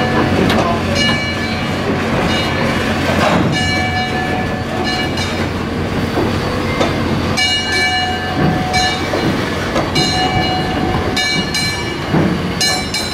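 Lehigh Valley 0-6-0 steam locomotive and an open excursion car rolling slowly past on steel wheels: a steady rumble with scattered clanks and high ringing squeals from the wheels on the rails that come and go, strongest in the second half.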